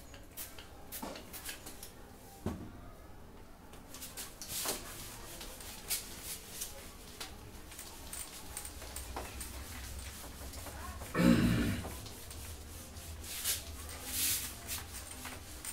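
Whiteboard eraser wiping across a whiteboard in short strokes, with scattered light knocks and rubs and one louder bump about eleven seconds in.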